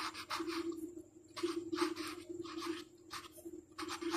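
Marker pen writing on paper: a series of short, irregular scratchy strokes in small groups, over a faint steady hum.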